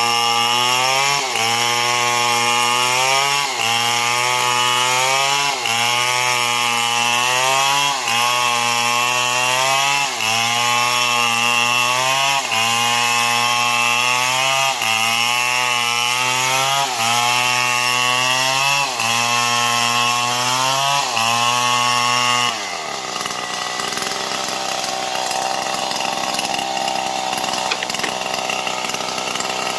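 STIHL MS 070 two-stroke chainsaw cutting neem wood, the engine pitch sagging and recovering about every two seconds as the chain loads in the cut. About three-quarters of the way through the engine drops to a lower, quieter speed, then picks up again right at the end.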